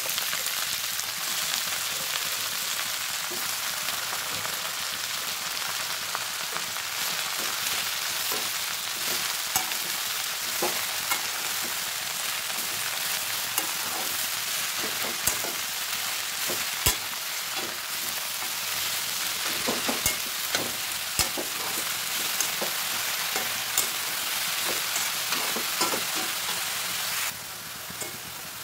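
Chopped leutia saag greens frying in hot oil in a metal wok, giving a steady sizzle. From about a third of the way in, a spatula stirring the greens scrapes and knocks against the pan now and then. The sizzle drops a little near the end.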